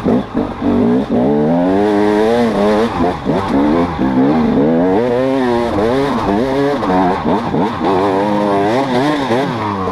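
Dirt bike engine revving up and down repeatedly as the rider works the throttle while climbing a rocky hill.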